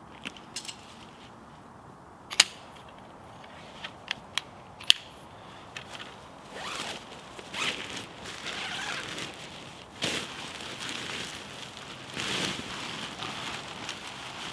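Six sharp clicks and snaps in the first five seconds, the loudest about two and a half and five seconds in, followed by irregular rustling and crinkling, like gear or fabric being handled.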